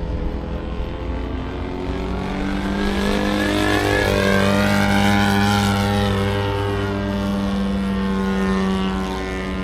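Radio-controlled model airplane engine flying past, growing louder to its peak about halfway through and then easing off.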